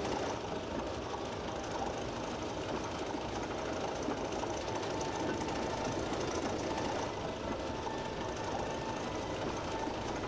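OO gauge model of an LNER Sentinel steam shunter running slowly along the track with a tank wagon in tow: a steady whirr of its small electric motor and its wheels running on the rails.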